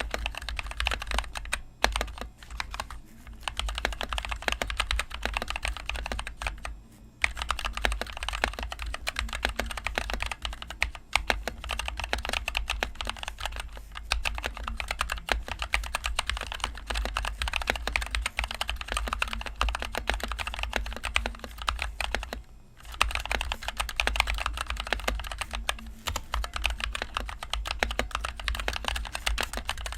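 Continuous fast typing on a NovelKeys NK65 Entry Edition mechanical keyboard with NovelKeys Cream linear switches and HyperX Pudding keycaps: a dense run of keystroke clacks, with brief pauses about 3, 7 and 22 seconds in.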